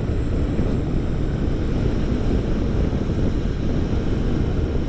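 Motorcycle running steadily at road speed, with a low, steady rumble of wind buffeting the microphone.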